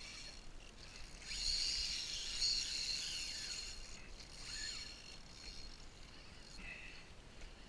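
Fishing reel's drag buzzing as a hooked fish pulls line off, in surges that rise and then fall in pitch. It is loudest in the first half, with weaker, shorter bursts later on.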